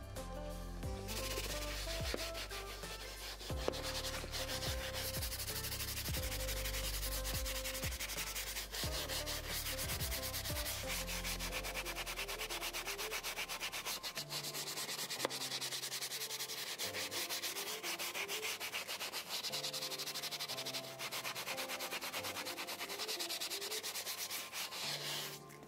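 Colourlock leather-cleaning brush scrubbing foamed leather cleaner into a perforated leather car seat: a fast, dense scratching rub of bristles on leather, over faint background music.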